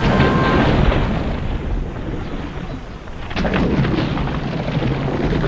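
Dubbed crash sound effect for a train collision: a sudden loud burst that dies away into rumbling, then a second burst with more rumbling about three and a half seconds in.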